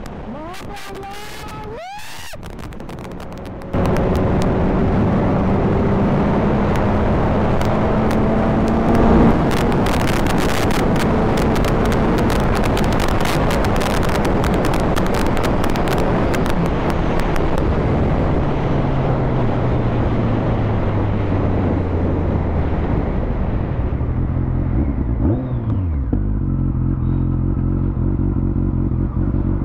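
BMW sport motorcycle at speed: a heavy rush of wind over a steady engine note, much louder from about four seconds in. In the second half the wind fades and the engine note steps down as the bike slows, running at low revs near the end.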